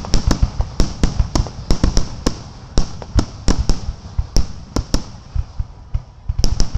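Fireworks finale barrage: a rapid, irregular run of sharp shell bursts, several a second, thinning out for a moment past the middle and picking up again near the end.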